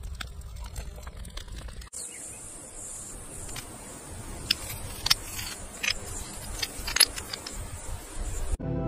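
Ambient sound bed: a steady low rumble with scattered sharp clicks and crackles, and a faint high hiss joining about two seconds in. It cuts off just before the end.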